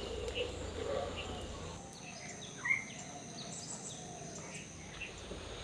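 Outdoor ambience: scattered short bird chirps over a steady high-pitched insect drone. A low hum drops out about two seconds in.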